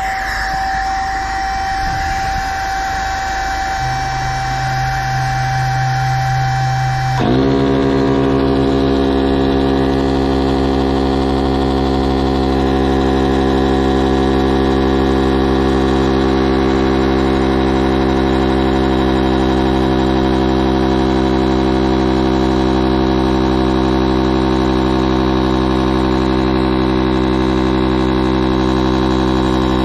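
Electric high-pressure inflation pump running steadily while it inflates an inflatable boat's tube through its hose. About seven seconds in its note drops abruptly and settles into a lower, steady drone.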